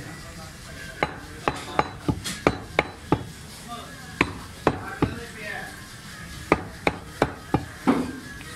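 Meat cleaver chopping goat meat on a wooden chopping block: sharp thwacks in quick runs of three or four strikes, with short pauses between the runs.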